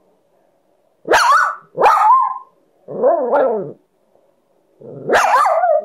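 A dog barking and yowling in four drawn-out calls, each under a second long, the pitch bending up and down within each call.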